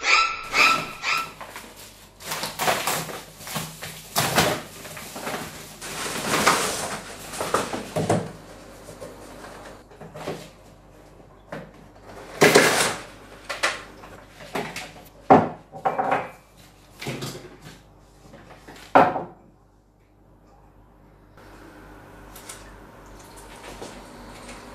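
Cardboard gift box being opened and a ceramic mug unpacked by hand: rustling and crinkling of cardboard and paper packaging for several seconds, then scattered sharp knocks and clicks as the box and mug are handled on a wooden table.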